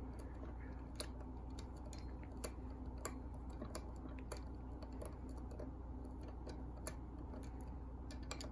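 Faint, irregular small clicks of a Phillips screwdriver turning out the screws of an O-scale model locomotive's chassis, over a low steady hum.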